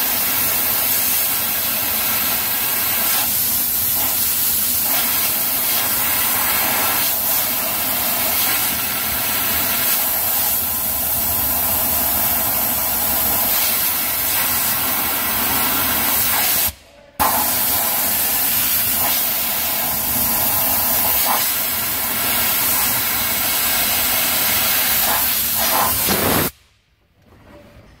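Compressed-air blowgun hissing steadily as it blows dust out of a pickup's cabin air ducts through the air-filter housing. It cuts out briefly about 17 seconds in, then runs again and stops shortly before the end.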